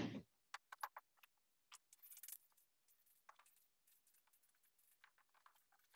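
Faint chalk on a blackboard while writing: a few sharp taps in the first second, a brief high scratch about two seconds in, then one more light tap.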